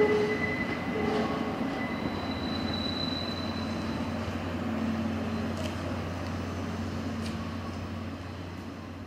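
A train of blue 12-series passenger coaches rolling away over the rails, with a steady wheel rumble and thin wheel-squeal tones in the first few seconds, fading as it recedes.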